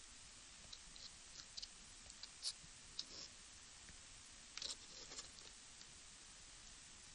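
Near silence over a steady hiss, with scattered small clicks and light taps from a micro RC helicopter's plastic frame and landing skids being handled and turned by hand; a few louder clicks come in the middle.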